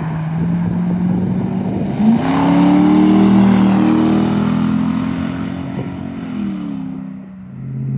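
Straight-piped 3.2-litre V8 of a 2001 Jaguar XJ8, with open exhaust from the manifold, driving past under acceleration. About two seconds in, the engine note jumps louder and rises in pitch. It holds, then drops and fades away near the end.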